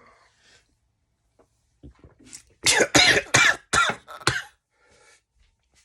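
A man's coughing fit: a quick run of harsh coughs starting about halfway in, as the cayenne pepper and vodka he is swallowing catch in his throat.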